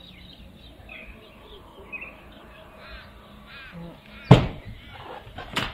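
Two loud knocks about a second and a half apart, the first the louder, from work on the barge board of a corrugated iron roof, with birds calling throughout.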